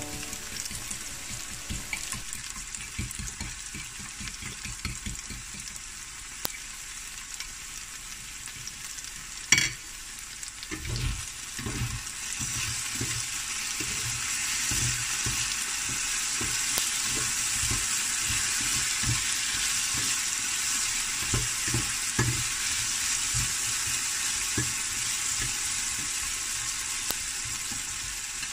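Diced potatoes sizzling as they fry in a nonstick pan. The sizzle grows louder about twelve seconds in. Scattered knocks and scrapes come from a spatula stirring them, with a fork beating eggs in a plate, and there is one sharp click near ten seconds.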